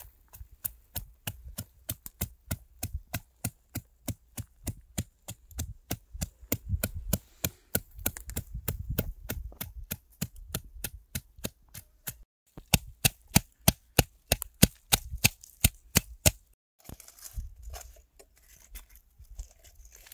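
A knife chopping food on a wooden board in a steady rhythm of about three strikes a second. The chopping cuts out briefly twice, and the strikes are louder for a few seconds in the middle.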